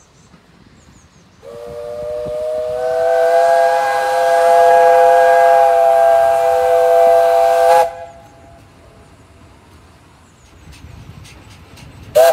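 Steam whistle on a 15-inch gauge steam locomotive: one long blast of about six seconds, several notes sounding at once over a steam hiss, growing louder and then cut off sharply. A short toot comes near the end as the engine nears. The whistle warns of the train at a level crossing.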